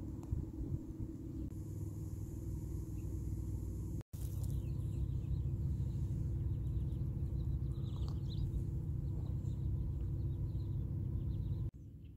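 Wind buffeting the microphone as a steady low rumble, with faint high chirping calls in the background during the second half.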